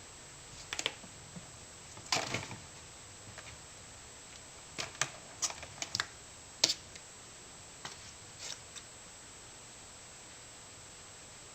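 A kitten playing with a fluffy feather toy: irregular short rustles, taps and scuffs as it pounces and bats, with a cluster about two seconds in and several more between about five and seven seconds.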